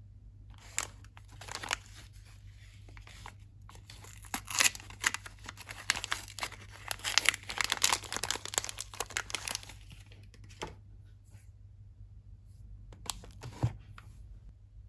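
Soap packaging being torn and unwrapped by hand: crinkling and tearing, busiest and loudest between about four and ten seconds in, then only a few scattered rustles.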